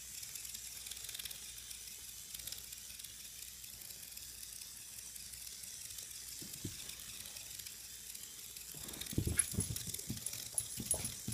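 Faint, steady high buzzing of a small vibrating robot bug toy crawling over carpet. About nine seconds in, soft thumps and scuffling as a Bernese mountain dog gets to its feet on the carpet.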